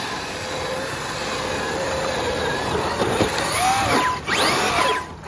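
Whine of a Traxxas X-Maxx 8S brushless RC monster truck's electric motor and drivetrain, with tyre noise on asphalt. It holds a steady pitch at first, then rises and falls several times from about three seconds in as the throttle is blipped.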